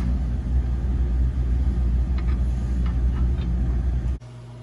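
A loud, uneven low rumble with a few faint clicks as a flange bolt and nut are fitted by hand to a bracket under a garden tractor. The rumble cuts off suddenly about four seconds in, leaving a quiet steady hum.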